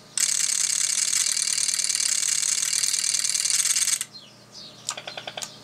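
Elecraft T1 automatic antenna tuner's relays chattering rapidly for about four seconds while it searches for a match on 17 meters, stopping abruptly once a match is found; a few single ticks follow near the end.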